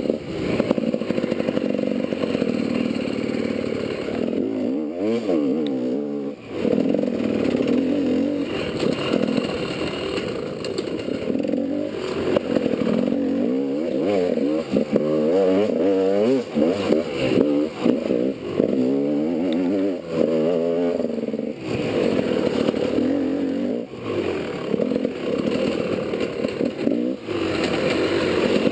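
GasGas enduro dirt bike engine revving up and down again and again as the rider opens and shuts the throttle on a forest trail. There are brief drops in level where the throttle closes, about every two to three seconds through the second half. It is heard close up from a helmet-mounted camera.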